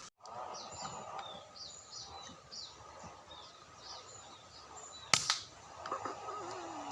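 Small birds chirping in quick, falling notes, then a single sharp gunshot about five seconds in, followed by more bird calls.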